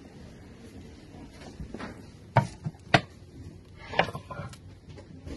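Wooden serving boards knocking against one another as they are handled on a shelf: a few sharp, hollow clacks, the loudest about two and a half, three and four seconds in.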